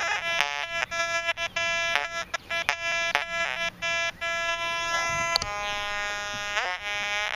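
Metal detector with a 6x10-inch double-D search coil sounding its target tones as the coil sweeps over the ground. It gives a fast, choppy run of short beeps, then from about five seconds in a steadier held tone that bends in pitch near the end. The detector reads the target as foil.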